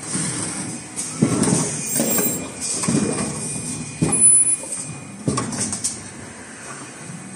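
Automatic N95 cup mask machine running, with irregular clunks from its moving stations and short hisses of air.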